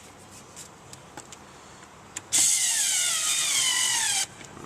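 A power driver runs for about two seconds, more than halfway through, as it drives in a blower motor mounting screw. Its whine falls in pitch as the screw tightens, then cuts off suddenly.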